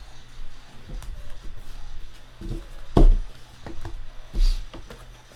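Handling noise on a tabletop as trading cards and their plastic holders are moved about: a few soft knocks and taps, the loudest about three seconds in and another a second and a half later.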